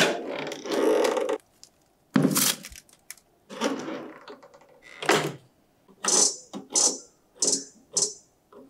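A Balmuda microwave oven being loaded: the door is opened, a plastic tub is set inside with a knock, and the door shuts with a thunk about five seconds in. Near the end, four short high beeps about half a second apart come as the dial is turned to set 500 W for three minutes.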